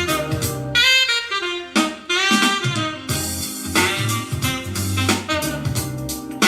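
Instrumental jazzy music with a gliding lead melody over drums and a steady bass, played through the Eggel Active 3 Bluetooth speaker in a sound test.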